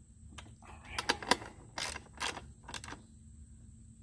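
A ratchet and socket clicking and tapping on the bolts of a Cub Cadet push mower's recoil starter housing as they are tightened: a handful of sharp, irregular clicks starting about a second in.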